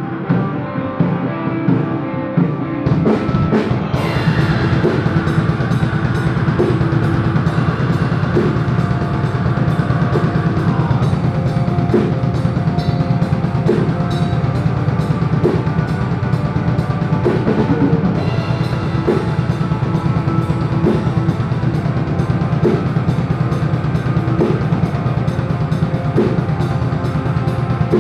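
Hardcore metal band playing live: distorted electric guitars and bass, with the drum kit coming in about three to four seconds in and keeping up a fast, steady beat with cymbals.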